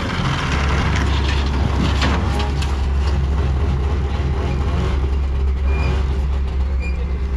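A vehicle engine running steadily close by, a loud, even low hum.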